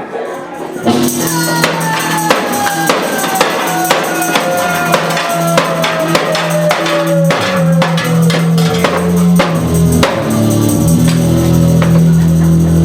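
Live band music kicks in about a second in, with a tambourine beat over steady bass notes and a long tone that slides slowly downward.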